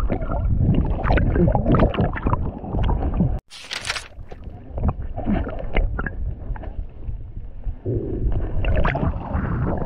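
Water sloshing and gurgling around a submerged action camera as its wearer wades through shallow sea, heard muffled. The sound cuts out suddenly about a third of the way in, followed by a brief hiss, then the sloshing resumes.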